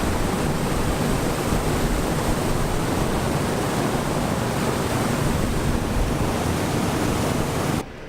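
Wind buffeting the microphone: a loud, gusting rush of noise, heaviest in the low end, that cuts in at the start and stops abruptly just before the end.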